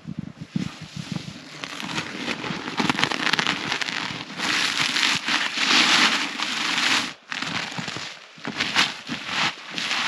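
Plastic bale wrap crinkling and crackling as it is peeled and pulled off a round hay bale. The rustle is densest about halfway through, then breaks into separate crackles near the end.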